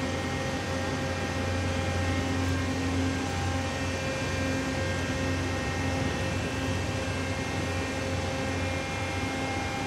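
Steady drone of crane machinery as it hoists an excavator on its hook: a low hum with several held whining tones above it, and a higher whine joining about four seconds in.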